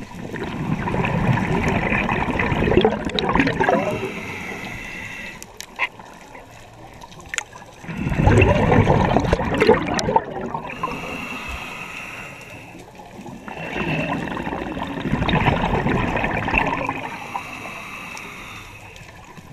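Scuba breathing through a regulator underwater: three long gurgling bursts of exhaled bubbles a few seconds apart, with quieter hissing inhalations between them.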